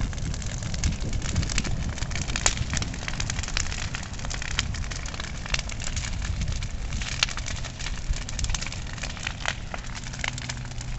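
Large bonfire of demolition debris (old wall paneling and lumber) burning hot, with a steady low rumble and constant crackling. Sharp pops stand out about two and a half seconds and seven seconds in.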